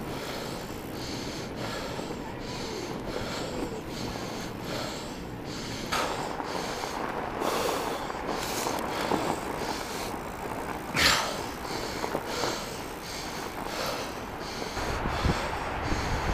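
Fat bike riding over packed snow: steady tyre and trail noise with a breathy sound that comes and goes at a steady rhythm, typical of the rider's hard breathing. A sharp knock about eleven seconds in, and heavier low rumble near the end.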